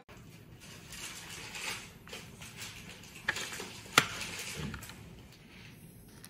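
Quiet handling of plastic food packaging, with a few small clicks. About four seconds in comes a sharp pop as a straw punches through the sealing film of a takeaway cup.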